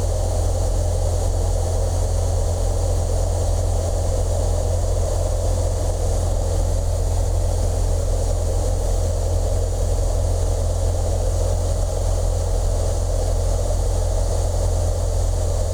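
Steady drone of a Piper Cherokee 140's four-cylinder engine and propeller in cruise, heard inside the cabin as an even, unchanging rumble with a constant low hum underneath.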